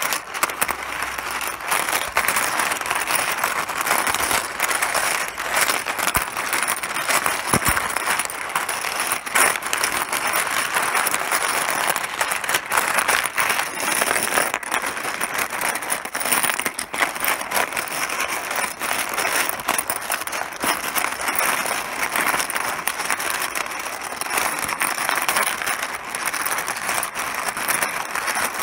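Mahjong tiles clattering: a dense, continuous stream of small hard plastic clicks and knocks.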